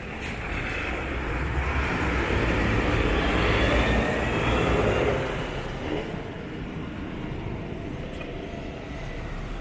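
Traffic passing on a wet road: tyres hiss on the wet asphalt over a low engine rumble. The sound swells to its loudest about four seconds in and fades after about five seconds.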